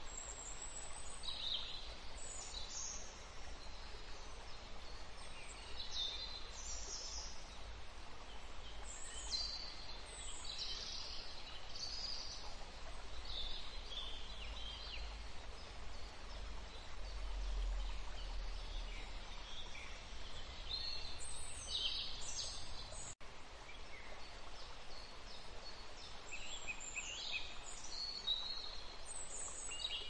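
Small birds chirping in short, scattered high calls over a steady outdoor hiss.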